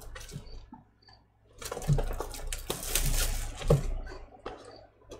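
Crinkling and rustling of a shrink-wrapped cardboard trading-card box being handled, in uneven stretches with a few small knocks, loudest from about one and a half seconds in.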